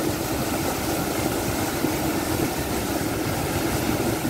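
Steady, heavy rush of water from an electric pump station's outlet pipe, gushing into a canal and churning, with a steady hum underneath.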